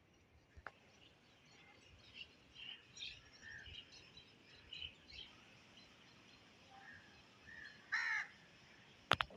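Outdoor birdsong: many short, scattered bird chirps, with a louder harsh call about eight seconds in. A sharp click comes just before the end.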